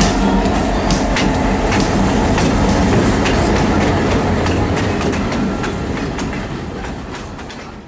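Diesel freight locomotive passing close by, its engine running under the clatter of wheels on the rail joints; the sound fades out near the end.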